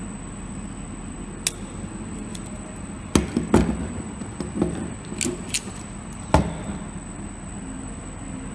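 RJ45 crimper tool clicking and rattling as it is worked on a network cable, cutting into the cable's outer plastic sheath with its built-in blade. One sharp click, then a cluster of clicks and rattles, then one more sharp click, over a steady background hum.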